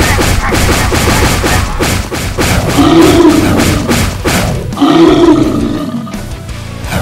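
A monster roar sound effect for a giant CGI cat creature, sounding twice, each roar about a second long, over loud rock music.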